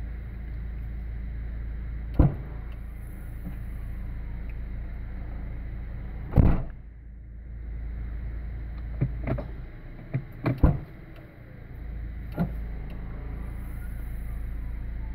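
Inside an idling Subaru: a steady low hum broken by several sharp clicks and knocks, the loudest about six seconds in, typical of the gear selector and controls being worked while the backup camera is tested.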